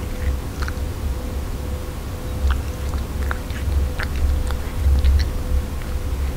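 Russian Blue cat eating wet cat food: scattered small wet clicks and smacks of chewing and licking, over a low rumble and a faint steady hum.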